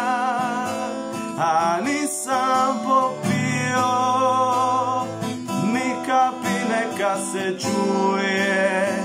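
Acoustic guitar strummed in a steady chord rhythm, with a man's voice singing held, wavering notes over it at intervals.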